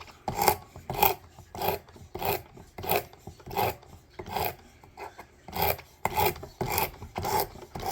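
Coarse 50-grit sandpaper on a Work Sharp Precision Adjust sharpening arm rasping back and forth across a steel knife blade in short, even strokes, a little under two a second, grinding the bevel to a new angle.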